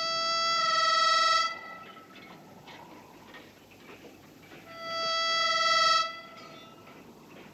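Harmonica playing the film's harmonica theme: a long, wailing held note that swells and breaks off about a second and a half in, then after a quieter gap another swelling held note from about five to six seconds.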